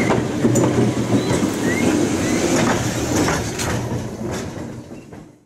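Vintage double-deck electric tram, no. 399, running past on street track, with several sharp clicks from its wheels over the rail. The sound fades away as it moves off near the end.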